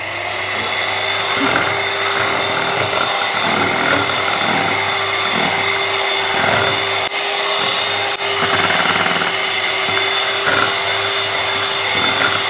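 Electric hand mixer running steadily at one speed, its beaters whisking fluffy whipped eggs in a bowl while cooking oil is added a little at a time.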